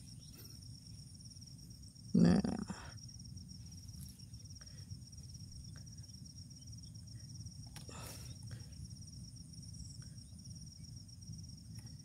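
Night insects chirring steadily at a high pitch, in two thin bands. A short, loud murmur of a voice comes about two seconds in, and a faint rustle near eight seconds.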